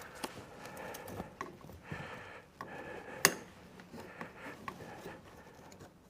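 Scattered clicks and knocks of a metal spring unit being handled and worked into a chair's wooden seat frame, with one sharp knock about three seconds in.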